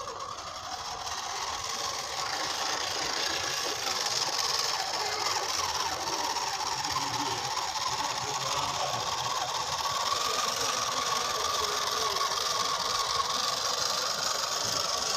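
The small electric drive motor and gearbox of a homemade 1/10-scale RC dump truck whirring steadily as it drives with a full load of mangoes.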